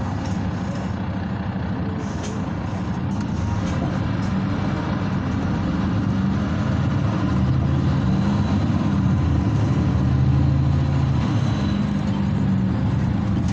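Diesel engine of a Mercedes-Benz Citaro C2 Euro 6 city bus pulling steadily, heard from inside the passenger cabin. It grows louder from about halfway through, as the bus accelerates, and eases off slightly near the end.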